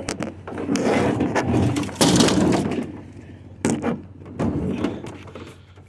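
Rustling and clattering from things being handled, with sharp knocks, the loudest just after 2 seconds and another near the middle, dying away toward the end.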